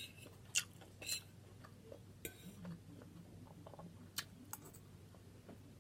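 Faint, scattered clicks and taps of cutlery against a plate during a meal of fried chicken gizzards and rice, about five of them spread over a few seconds.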